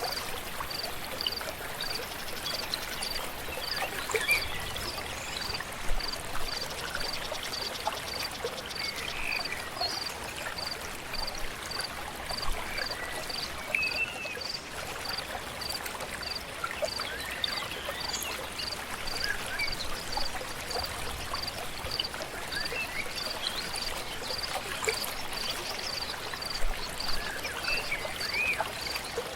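Forest ambience: a river flowing steadily, with scattered short bird chirps and a regular high pulsing call repeating about one and a half times a second.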